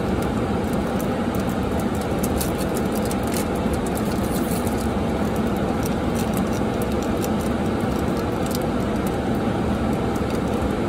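Crinkling and ticking of a foil Pokémon booster-pack wrapper being handled and torn open, in scattered bursts, over the steady running noise of a car heard from inside its cabin.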